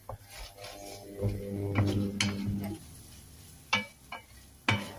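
Wooden spatula stirring and scraping scrambled eggs in a stainless-steel frying pan, with several sharp knocks against the pan, one of the loudest near the end. A held pitched tone sounds behind it through the first half.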